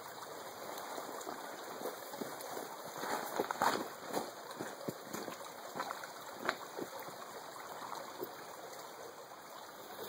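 Shallow rocky creek trickling and gurgling over stones, a steady even rush of water with a scattering of small splashes and light clicks.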